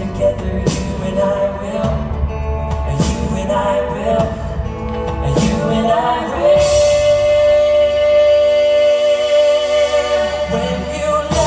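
Live pop band playing with singing, heard from the audience in a large hall. About six seconds in, one long note is held for about four seconds while the low end drops away, and then the full band comes back in.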